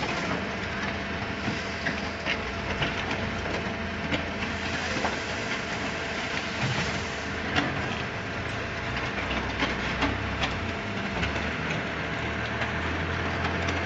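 Concrete mixer pump running, a steady mechanical hum with frequent irregular clattering knocks.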